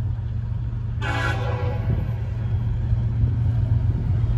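An approaching CSX diesel freight locomotive's air horn starts sounding about a second in, distant and fading to a fainter note, over a steady low rumble.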